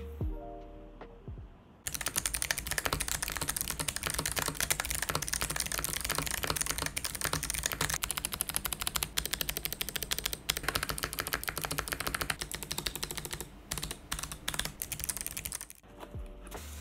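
Fast continuous typing on a CIY GAS67 gasket-mount mechanical keyboard with clicky Kailh Box White v2 switches, a PC plate, tape mod and foam, and Razer Phantom keycaps. The typing starts about two seconds in and stops shortly before the end, with soft music before and after.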